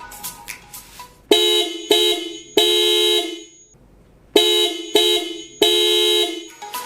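Hella Classic dual-tone 12 V electric car horn, its high and low notes sounding together, honked in two sets of three: two short toots and then a longer blast, with a short pause between the sets.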